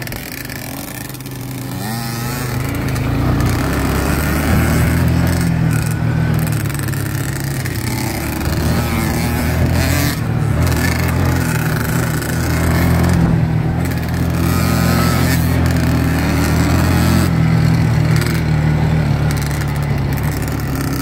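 ATV engine running under steady throttle, heard from a camera mounted on its front rack. The engine note swells about two seconds in and stays up.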